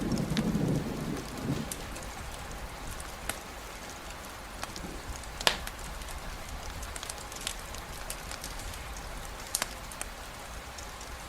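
Steady rainfall with scattered sharp ticks of drops, the loudest about five and a half seconds in. The tail of a low thunder rumble fades out in the first second and a half.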